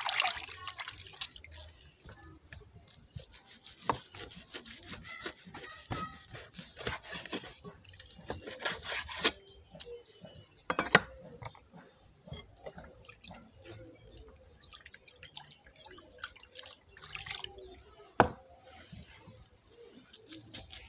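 Water dripping and splashing in short spells, with a few sharp knocks in between.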